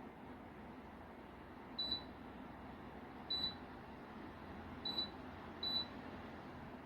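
LEVOIT tower fan running with a steady, quiet rush of air, and four short high-pitched beeps from its control panel as settings are changed, spaced unevenly about a second or so apart.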